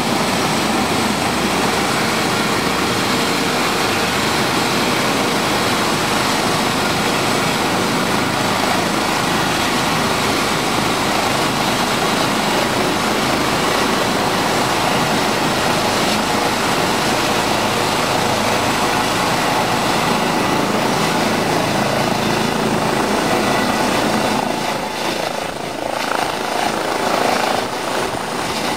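Eurocopter EC135 rescue helicopter running on its pad, its turbines whining steadily with the rotor turning. About 24 seconds in the sound starts to waver and pulse as the helicopter readies for lift-off.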